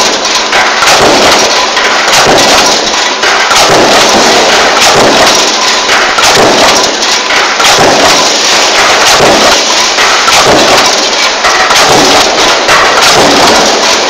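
Mechanical power press running continuously with a progressive die, stamping sheet-metal junction boxes; a loud, steady run of strokes about once a second.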